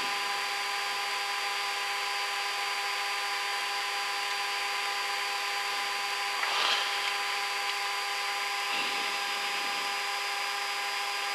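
Cessna Citation Encore's two Pratt & Whitney PW535A turbofans whining steadily, heard with the airflow rush inside the cockpit on short final: several steady high tones over an even hiss. There is a brief swell in the noise about halfway through.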